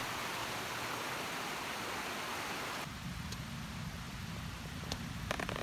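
Steady rushing of flowing stream water that cuts off abruptly about three seconds in. A quieter low rumble follows, with a few short clicks near the end.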